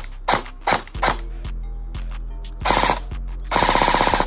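Airsoft electric gun (AEG) with a 38 TPA motor firing: two single semi-auto shots, each a quick crack of the gearbox cycling, then two full-auto bursts, a short one and a longer one, with the gearbox cycling rapidly.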